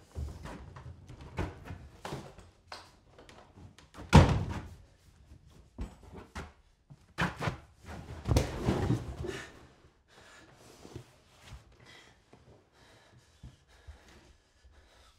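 Footsteps and thuds on old wooden floorboards, the loudest thud about four seconds in, with a cluster of knocks and movement around eight seconds; then only faint rustles.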